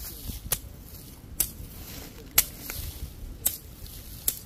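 Sharp, uneven knocks and handling noise from raw chicken backs being cleaned and cut by hand, about six knocks in all.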